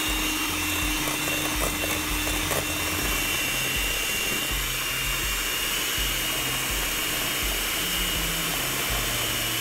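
Electric hand mixer running steadily at speed, its twin metal beaters whipping egg whites and sugar into meringue in a stainless steel bowl.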